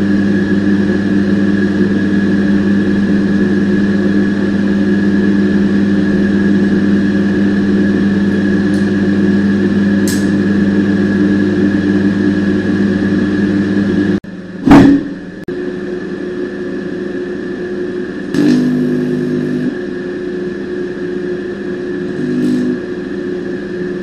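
Microwave oven running with a steady electrical hum. A little past halfway the hum breaks off and a single loud bang stands out, then the hum carries on quieter, swelling briefly into a louder buzz twice near the end.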